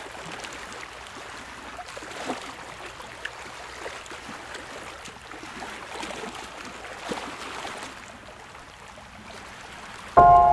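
Water lapping and splashing at the surface as a diver slides in, with small gurgles and light splashes. Near the end a loud sustained musical chord of several ringing pitches cuts in suddenly.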